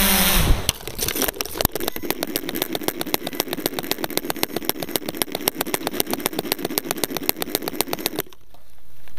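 Hexacopter motors winding down, then a thud as the drone hits the ground and a few knocks as it tumbles. After that comes a rapid, evenly spaced ticking from the downed drone for about six seconds, which stops shortly before the end.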